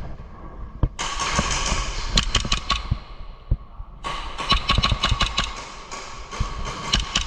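Heavy breathing through a gas mask: two long, rasping breaths about a second in and about four seconds in, each with a faint whistle, and scattered sharp clicks and knocks among them.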